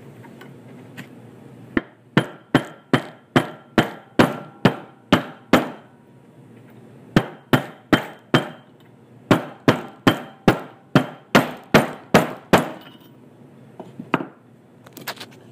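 A mallet striking a socket in quick, evenly spaced blows, about two to three a second, in three runs with short pauses between them, then a few lighter taps near the end. The blows drive a tight-fitting new collar down onto the shaft of a Holset HX35 turbocharger.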